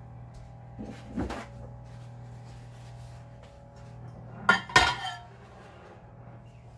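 Glass baking dish handled on a countertop: a light knock about a second in, then two sharp clinks with a short ring about four and a half seconds in. A steady low hum sits under it.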